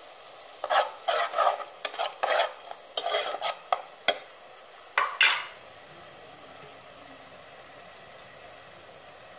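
A spoon stirring chopped tomatoes frying in oil in a metal pot, scraping against the pot in a quick run of strokes for about five seconds, then stopping, leaving a steady hiss.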